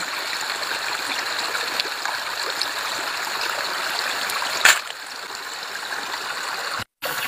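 Steady rush of shallow running stream water, with one sharp click about two-thirds of the way in. The sound cuts out completely for a moment near the end.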